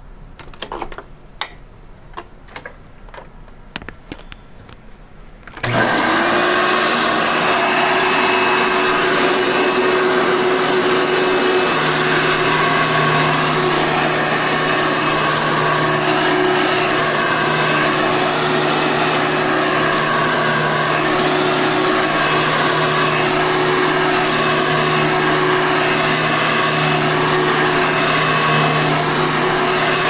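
A few clicks and knocks, then about six seconds in a Hoover Tempo soft-bag upright vacuum cleaner switches on and runs steadily with a whine, some of its tones dipping and rising as it is worked back and forth.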